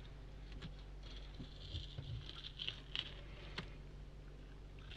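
A knife scraping and cutting a small fish on a plastic cutting board, with soft irregular scrapes and light ticks and taps. A faint steady low hum runs underneath.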